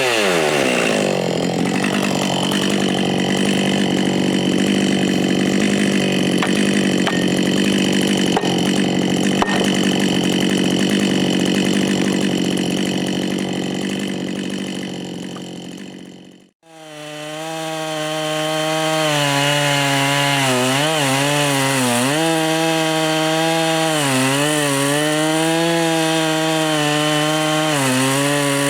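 Gas chainsaw cutting wood: its engine pitch drops sharply as the chain bites in, then runs steadily under load. About 16 seconds in the sound fades out and back in, and the saw runs on with its pitch wavering up and down.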